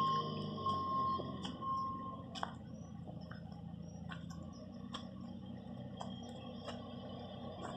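Footsteps on a dry dirt road, about one a second, over a faint low hum that fades away about halfway through.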